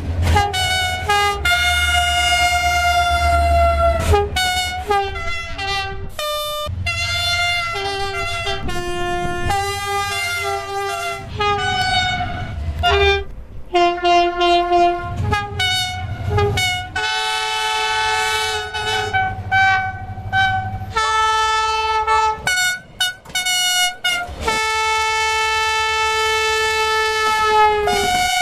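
Train horns sounding one after another, cut together from different trains: short toots and long held blasts, several of them multi-note chords. The pitch changes abruptly from one horn to the next, and a long held chord runs over the last few seconds, with a low rumble under some of the blasts.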